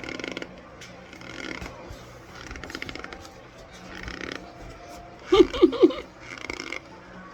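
Close-up chewing and crunching of raw cornstarch, a crackly crunch roughly every second and a half. A short vocal sound cuts in a little past five seconds.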